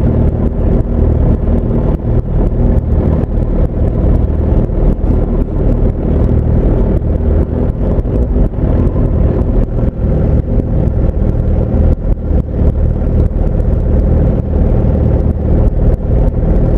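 Motorcycle engines idling close by: a loud, steady low rumble.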